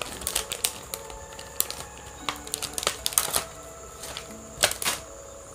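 Clear plastic packaging of a pair of Bluetooth earphones being handled and opened by hand: scattered clicks, taps and crinkles of the plastic tray, the sharpest ones close together a little after halfway and again near the end.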